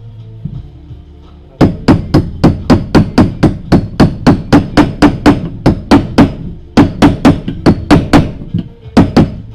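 Hammer blows in quick succession, about four or five a second, tapping an oil seal into its seat in a Ural motorcycle gearbox housing. The blows break off briefly, start again, and end with two last taps.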